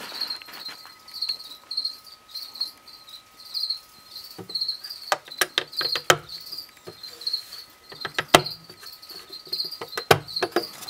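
Insect chirping steadily in short, high, evenly repeated chirps, with several sharp clicks and knocks about halfway through and again near the end as a box and its contents are handled.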